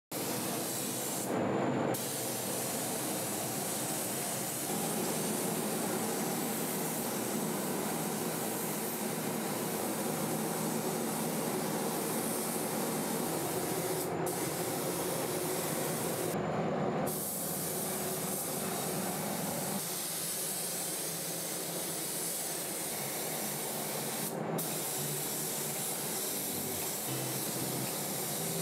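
Compressed-air paint spray gun hissing steadily while spraying paint, with a few brief breaks in the hiss.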